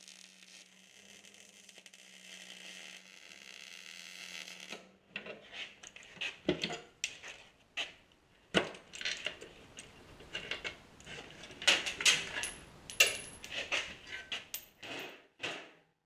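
MIG welding arc crackling and hissing over a low hum while tacking a steel seat-mount frame, stopping after about five seconds. Then steel parts and tools clank and click against a metal welding table, several sharp knocks among them.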